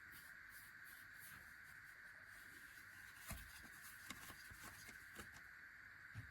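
Near silence: a steady faint hiss with a few soft clicks.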